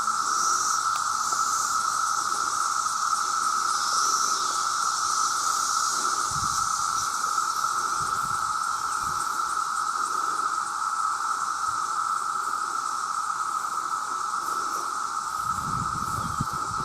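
Chorus of many male cicadas calling at once: a dense, steady, high drone with no break. A few low thumps come through about six seconds in and again near the end.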